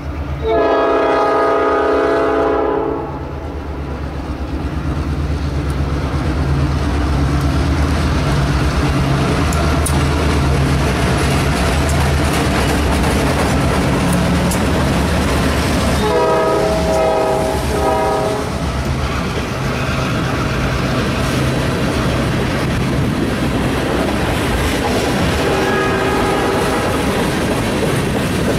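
CN freight train's diesel locomotive sounding its multi-tone horn: a long blast at the start, a second blast about two-thirds of the way through, and a fainter short one near the end. Under it runs the steady rumble of the diesel engine, and then the noise of tank cars rolling past on the rails.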